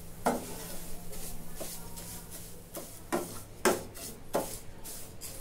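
A spatula stirring and scraping fine vermicelli as it roasts in ghee in a frying pan: steady rubbing, broken by a few sharper strokes in the second half.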